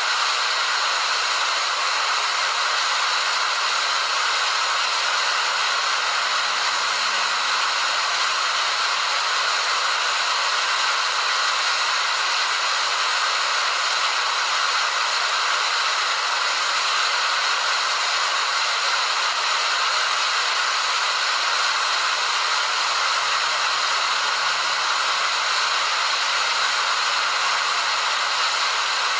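Waterfall: falling water rushing in a steady, even hiss that does not change.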